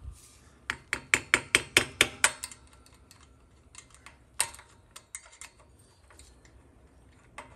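Light metal-on-metal taps of a pick or small screwdriver worked against the accumulator snap ring in a TH350C valve body's bore. A quick run of about ten taps, roughly six a second, comes near the start, followed by a few scattered clicks.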